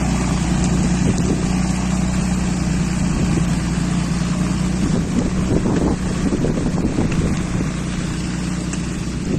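A Caterpillar 518 cable skidder's diesel engine runs steadily as it drags a hitch of whole trees. From about halfway through, branches crackle and scrape over the ground. Wind buffets the microphone.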